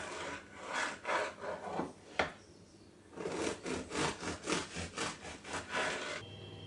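Bread knife sawing through a crusty baguette on a plastic cutting board: a run of rasping back-and-forth strokes, a single sharp tap about two seconds in, then after a short pause a second, quicker run of strokes.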